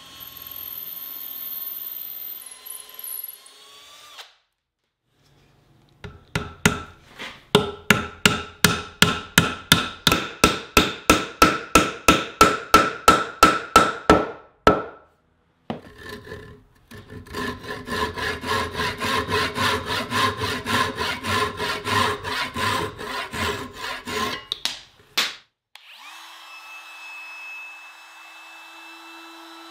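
Cordless drill running as it bores through the end of an oak handle. Then a hammer drives a walnut dowel into the hole with a long run of sharp, even blows about three a second, a pause, and another run of blows. Near the end a trim router starts up and runs steadily.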